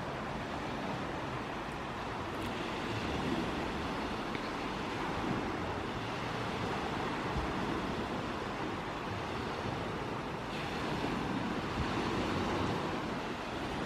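Steady rushing noise, swelling a little louder about ten seconds in.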